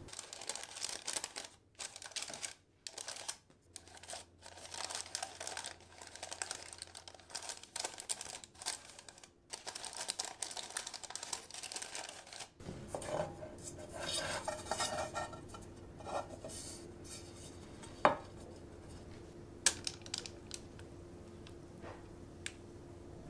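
Parchment paper rustling and crinkling as it is handled and pressed into a round metal cake tin. Later there are two sharp taps.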